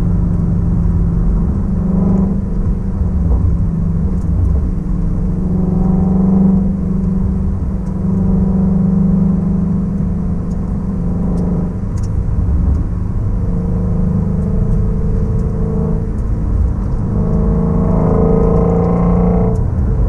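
2016 Shelby Mustang GT350's 5.2-litre flat-plane-crank V8, heard from inside the cabin while cruising slowly on light throttle: a steady low engine drone over road rumble, rising and falling a little with the throttle.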